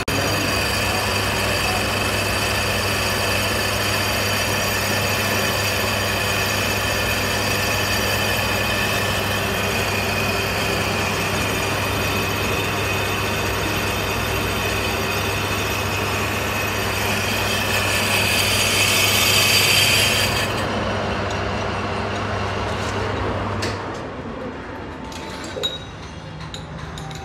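Metal lathe running as it turns (skims) a brake disc: a steady motor hum with a high ringing whine from the cutting tool on the disc face. The cutting noise grows louder and then stops about three-quarters of the way through, the motor shuts off a few seconds later, and a few metal clinks follow near the end.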